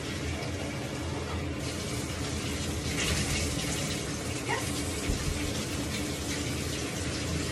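Bathtub faucet running steadily into the tub, water splashing, with a louder splash about three seconds in.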